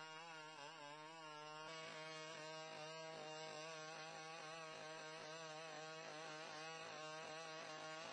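Boston Dynamics BigDog robot's two-stroke engine driving its hydraulic pump while walking, a steady drone whose pitch wavers slightly.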